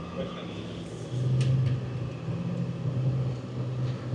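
A 4x4's engine running under load in snow: a steady low drone that swells about a second in and then holds.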